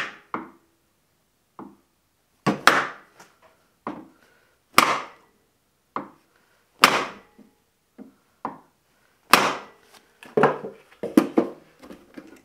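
Hammer striking a wooden block held against a drill press chuck, tapping the chuck onto its Jacobs taper arbor so the friction fit seats. Single sharp knocks come about every two seconds, then several quicker knocks near the end.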